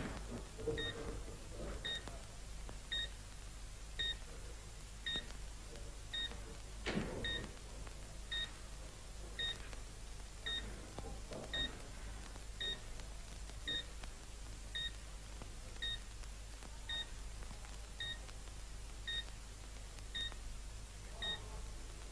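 Hospital heart monitor beeping steadily, one short high beep about every second, over a low steady hum. A soft knock near the start and another about seven seconds in.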